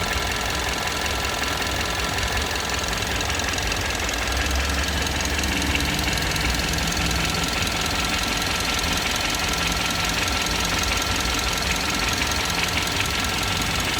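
Kia Optima GT's 2.0-litre turbocharged direct-injection petrol engine running warm, with a fast, even, light tapping over the engine note. The owner doubts this tapping is normal on a new engine at 950 km.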